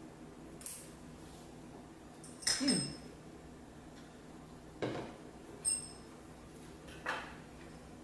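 Metal chopsticks clinking with a brief metallic ring, twice, among a few lighter knocks and handling sounds while eating.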